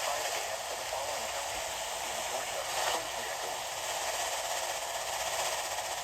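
Steady radio static: an even hiss with no speech or alert tones.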